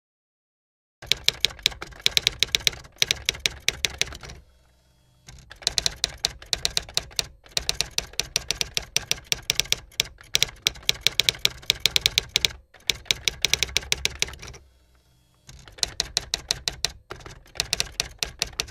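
Typewriter sound effect: rapid runs of key clicks, broken by short pauses between lines, typing out on-screen text.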